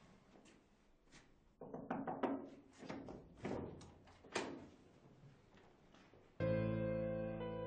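Footsteps and a door closing: a run of knocks and thuds starting about one and a half seconds in, then sad piano music comes in suddenly near the end.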